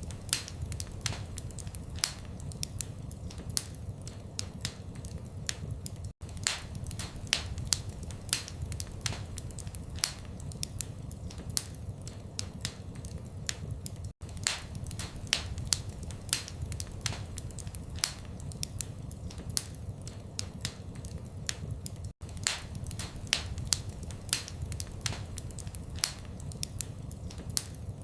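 Wood fire crackling in a fireplace: frequent sharp pops and snaps over a low, steady rumble of flames. There is a very short gap in the sound three times, about every eight seconds.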